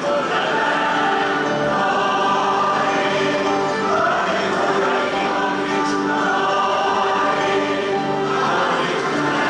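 Large mixed choir singing a hymn in harmony, holding long chords that change every second or so.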